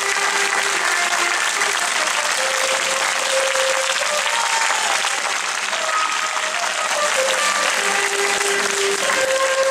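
A crowd applauding steadily, with music playing underneath in long held notes.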